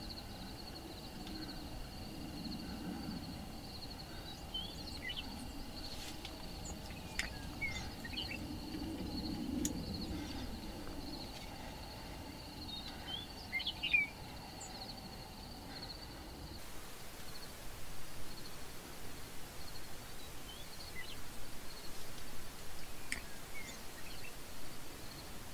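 Quiet open-country ambience: scattered short bird chirps over a steady high insect drone and a faint low rumble. About two-thirds through, the sound changes to a louder, uneven rustle.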